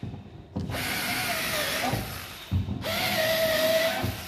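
Screwdriver tip twisted by hand into a plaster-of-Paris false ceiling, boring a hole for a wall plug: two spells of grinding and scraping, each about a second and a half long, with a wavering whine.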